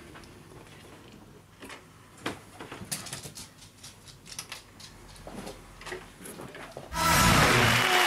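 Soft clicks and clatter of a DVD player's disc tray and buttons as a disc is loaded. About seven seconds in, loud applause and music start abruptly.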